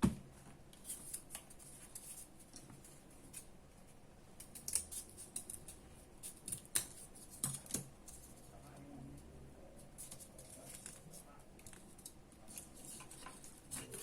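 A sharp click, then irregular light clicks and scrapes of small hard objects being handled at close range.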